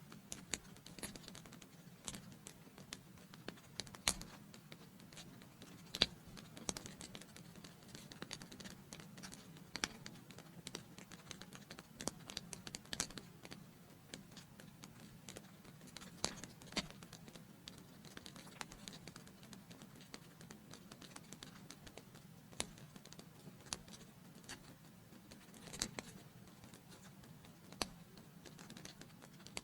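Wood fire crackling in a fireplace: irregular sharp pops and snaps, a few louder than the rest, over a steady low background.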